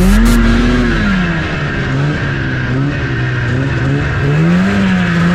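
Snowmobile engine running, its pitch rising and falling as the throttle is opened and eased off, highest about a second in and again near the end.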